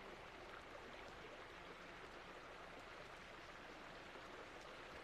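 Faint, steady rush of river water, close to silence.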